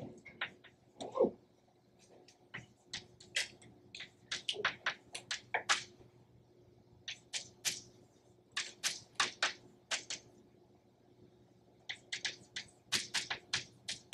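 Chalk writing on a chalkboard: runs of quick taps and short scratches as letters are formed, broken by brief pauses between words.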